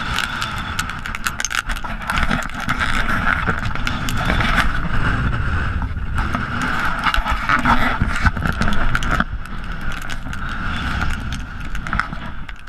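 Gusty wind from a dry microburst buffeting the microphone: a loud, continuous rumble full of crackles and pops, with a steady rushing hiss over it.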